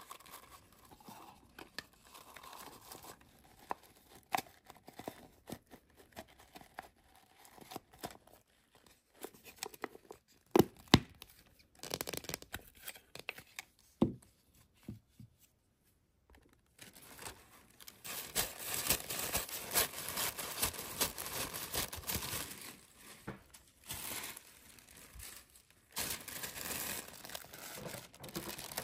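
Hands handling toy packaging: scattered taps and clicks of the plastic capsule halves being fitted together, then, from about 17 seconds in, a sheet of tissue paper being handled and crinkling, with a pause and more crinkling near the end.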